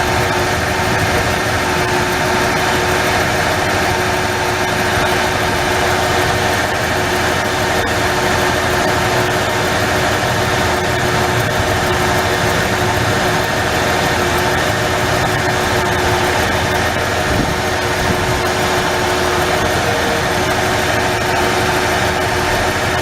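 1994 Ford F-150's 4.9-litre inline-six idling steadily, with an intermittent misfire on cylinder 3: its spark drops out now and then, which the owner puts down to a problem in the ignition primary.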